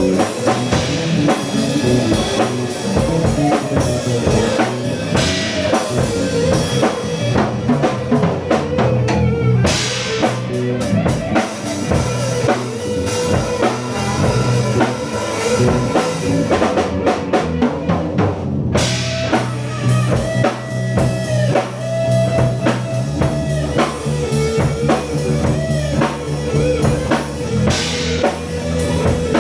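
Live rock band improvising: drum kit with bass drum, rimshots and cymbals under electric guitar and bass, playing continuously.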